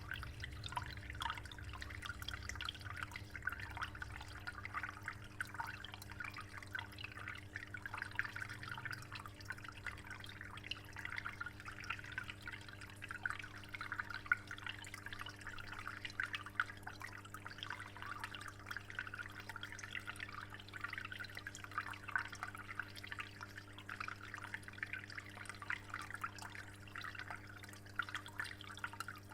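Water in a discus aquarium trickling and splashing steadily, with a continuous patter of drips. A steady low hum runs underneath.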